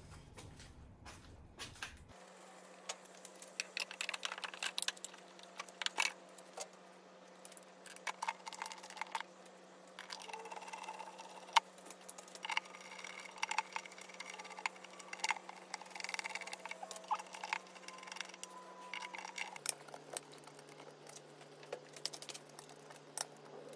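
Automatic transmission sump pan being worked up into place against the gearbox and its small bolts started by hand: scattered light clicks, taps and metallic rattles at irregular intervals, over a faint steady hum.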